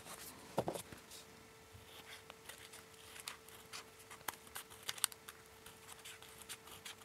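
Small scissors cutting through several layers of folded origami paper: a run of faint, crisp snips at an irregular pace, with paper handling between cuts.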